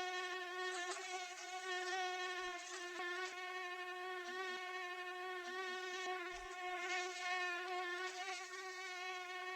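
Mosquito in flight: a steady, high-pitched whine from its wingbeats, holding one pitch with rich overtones and swelling slightly in loudness now and then.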